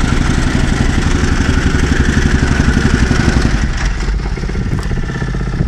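Vibratory rammer (jumping-jack compactor) running, its small engine and stamping foot pounding in a fast, even rhythm as it compacts clay backfill. The sound eases off a little about four seconds in.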